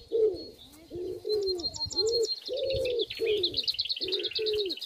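Birds calling: a low cooing note repeated about twice a second, joined by a high, rapid trill from about a second and a half in.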